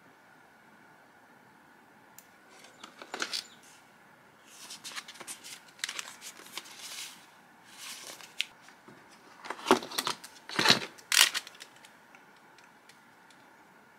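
Hands handling laptop packaging: a paper documentation envelope and cardboard tray rustling and sliding in scattered bursts. Several sharp taps and clicks come about ten to eleven seconds in and are the loudest sounds.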